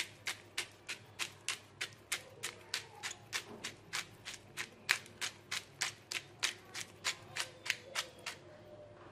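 Pepper shaker shaken over a bowl of fish, giving a sharp tick with each shake, about three or four a second, stopping shortly before the end.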